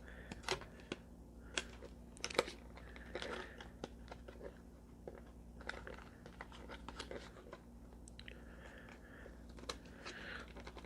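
Product packaging being worked open by hand: scattered clicks, crackles and rustling as a tight box and its contents are pulled and pried at.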